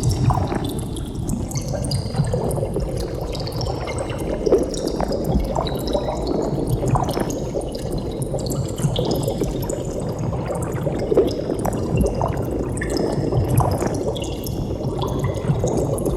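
Underwater bubbling: a steady gurgling wash of rising bubbles, with many quick high blips over a low rumble.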